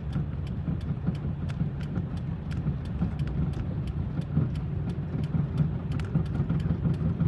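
Steady low rumble of a car driving slowly through deep floodwater, heard from inside the cabin, with quick faint ticks running through it.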